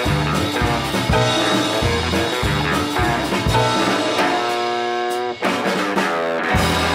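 Live band of electric guitars, upright double bass and drum kit playing an instrumental passage on a steady beat. About four seconds in it breaks into held chords, and near the end a loud full chord with a low bass is struck and rings on.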